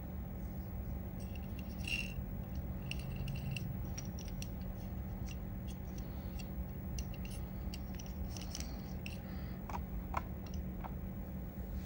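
Light clicks and ticks of a small diecast metal toy car being turned over in the fingers, over a steady low hum. A few firmer knocks near the end as the car is set down on a cutting mat.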